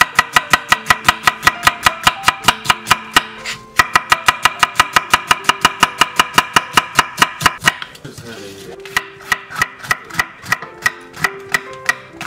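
Chef's knife slicing quickly through onion onto an end-grain wooden cutting board: sharp, even knocks about five a second, with a short gap near four seconds. After a break about eight seconds in, the knife goes on, less evenly, through red and green chili peppers.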